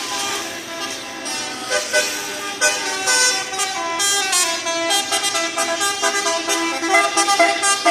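A vehicle's basuri horn, a multi-note musical air horn, playing a tune: a run of held notes changing in steps, several tones sounding together, with a few sharp new blasts along the way.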